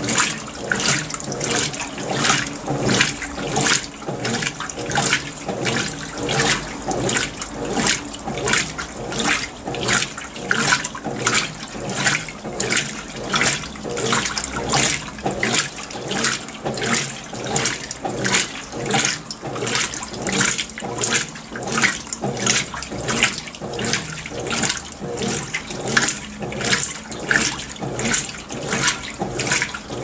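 Consul CWL16AB 16 kg top-load washing machine agitating its load in water during the wash: steady, rhythmic swishing and sloshing, one stroke after another.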